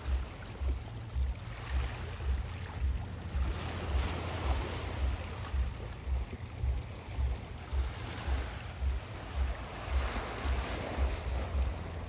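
Small waves of a bay washing, with a steady noisy wash that swells about four seconds in and again near the end, and wind on the microphone. Underneath, a low thud repeats about twice a second.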